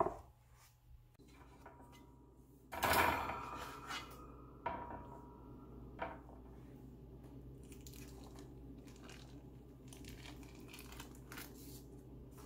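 Metal baking pan knocking and clattering on a wire cooling rack as the cornbread is turned out, with a few lighter knocks after. Then parchment paper crinkles and rustles as it is peeled off the bottom of the cornbread.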